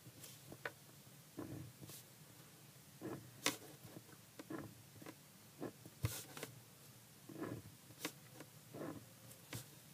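Short pencil strokes scratching on paper along a ruler, drawing the columns of a bar graph, in a string of separate strokes, with a few sharp clicks among them.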